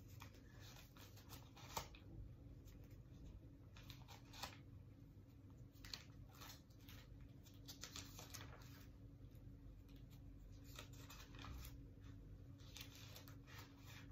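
Near silence: faint, scattered scratches and rustles of small things being handled, over a low steady hum.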